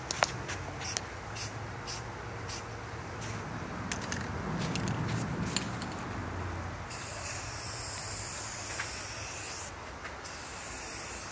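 Aerosol spray paint can hissing as paint is sprayed onto a wall: a long spray in the second half, a short break, then another short spray. Scattered sharp clicks come in the first half.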